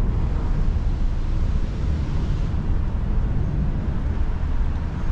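Steady low rumble of outdoor street ambience, with no single clear source standing out.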